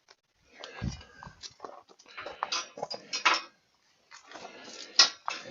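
Scattered clicks, taps and scrapes of hand tools and small metal parts being handled, with a sharper click about five seconds in.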